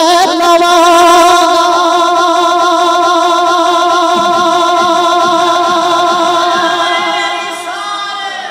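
A preacher's voice through a microphone, holding one long sung note with a slight waver; it weakens near the end.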